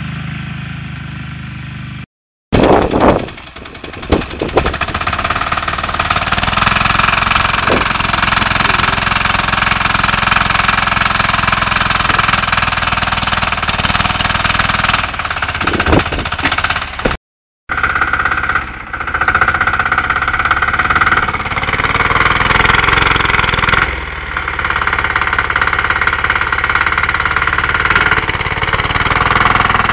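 Homemade tractor's diesel engine running with a hard clatter as it works through mud towing a loaded trailer, cut off twice by brief dropouts.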